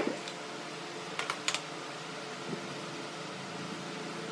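Steady background hum with a sharp knock at the start and two quick knocks about a second in, from a hammer and tools being handled at a wooden bench.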